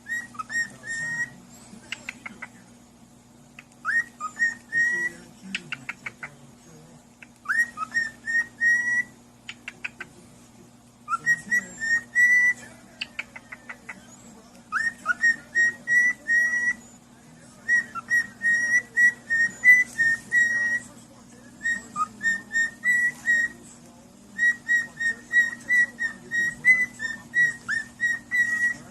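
Whistling: phrases of short, high, quick repeated notes, some sliding up into the note, broken by brief pauses, over a faint steady hum.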